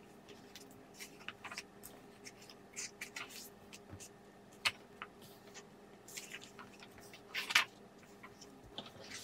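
Pages of a home-printed photobook dummy being handled and turned by hand: scattered soft paper rustles and small ticks of fingers on the paper, with a sharper tick about halfway through and the loudest page-turn rustle near the end.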